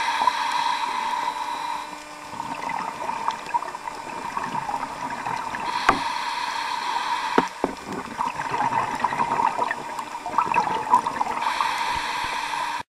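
Underwater sound of a scuba dive: steady bubbling and crackling, with a hiss of regulator breathing about every five or six seconds. A couple of sharp knocks fall near the middle.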